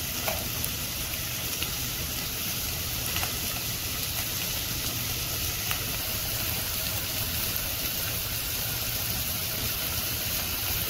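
Chopped onions and curry leaves frying in hot oil in a nonstick pan: a steady sizzle, with a steady low hum underneath.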